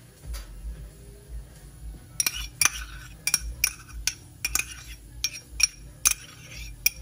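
Metal spoon clinking and scraping inside a small cup as its contents are spooned out into a bowl: about a dozen sharp, irregular clinks starting about two seconds in.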